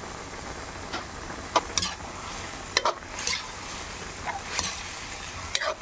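A spoon stirring pork in a cooking pot, clicking and scraping against the pot a handful of times, over a steady sizzle of the meat cooking.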